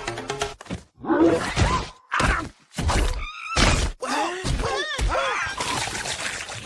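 A run of cartoon sound effects: sudden thuds and crunches, groaning and wailing voices without words, then a splash of water near the end.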